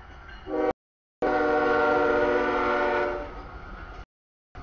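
Freight diesel locomotive's air horn sounding for the grade crossing: a brief note about half a second in, then one long chord of several tones lasting about two seconds, over the low rumble of the approaching train. The audio cuts out completely for a moment before and after the long blast.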